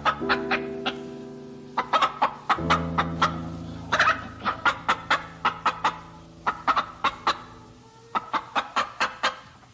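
Chicken clucking in quick runs of short clucks with brief pauses between them, over background music with long held notes.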